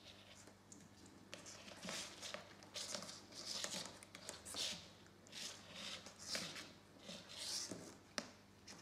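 Insulated test leads scraping and rustling across a tabletop as alligator clips are handled and clipped together, with several small clicks from the clips, the sharpest near the end.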